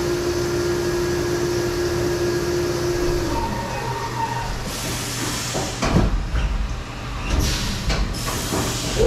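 Haas VF2 SS CNC vertical mill running, with a steady spindle tone that stops about three seconds in. A stretch of hissing follows, with two clunks about six and seven and a half seconds in, as the machine moves on between tools.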